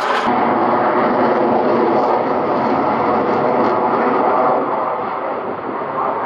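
JAS 39C Gripen's single Volvo RM12 turbofan heard from the ground: a loud, steady rushing jet noise. The sound turns duller abruptly a quarter second in.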